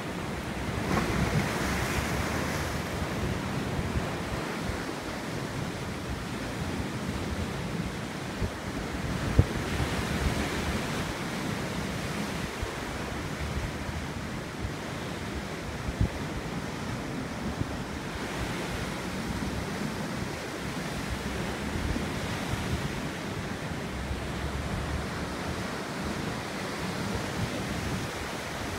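Sea surf breaking and washing against rocks, swelling and easing every several seconds, with wind rumbling on the microphone. Two brief knocks, about a third of the way in and just past halfway.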